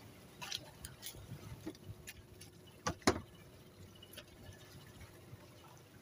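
Scattered light clicks and taps from fishing tackle being handled, with two sharper clicks close together about three seconds in, over a faint low rumble.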